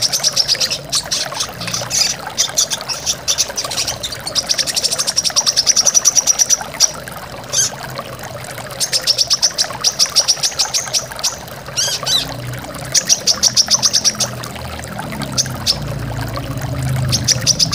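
Brown-throated sunbird (kolibri kelapa) song: fast high trills of rapidly repeated notes, several runs of a second or more with short gaps between, over the steady rush of a waterfall. A low hum builds near the end.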